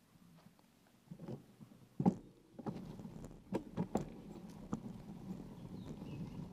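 Bicycle rattling and knocking as it rolls over a rutted sandy dirt track: a loud knock about two seconds in and several more over the next few seconds, over a steady low rush of rolling noise that builds from under three seconds in.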